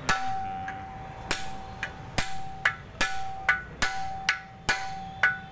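Hammer blows on a rivet set held against the rivets of a Tata truck drum brake shoe, setting the rivets that hold the new brake lining. About eleven blows come at roughly two a second, each leaving the steel shoe ringing with a clear metallic tone.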